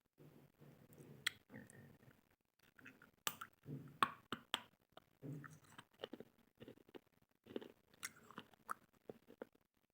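Someone biting and chewing hard white slate pencil, with irregular sharp crunches and cracks over softer chewing.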